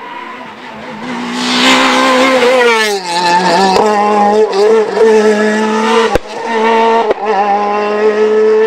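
Hatchback rally car at full throttle on a tarmac special stage: the engine builds as it approaches, drops sharply in pitch as it slides past with its tyres scrabbling on dusty tarmac, then holds a high, steady note as it accelerates away. A single sharp crack about six seconds in.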